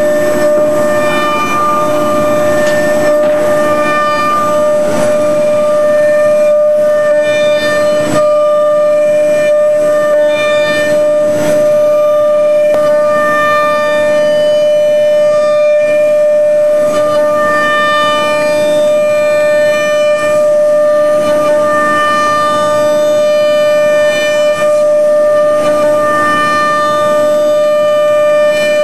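High-speed CNC router spindle (5 hp automatic-tool-change spindle) running with a steady high-pitched whine while its cutter mills a plastic foot orthotic; higher tones come and go every second or two as the cutter bites into the material.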